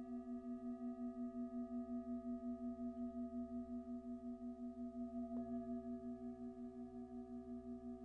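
Hand-held Tibetan metal singing bowl ringing on after a strike: one deep hum with several higher overtones, wavering in an even pulse of about five beats a second. A faint knock comes about five seconds in, and the ring carries on.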